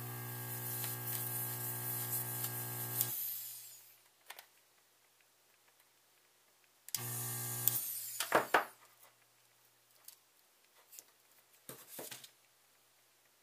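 Electric desoldering gun's built-in vacuum pump running as it sucks molten solder off a capacitor's pads on a circuit board: a steady motor hum with an airy hiss, one run of about three seconds, then a shorter run of under a second about seven seconds in. A few light clicks follow near the end.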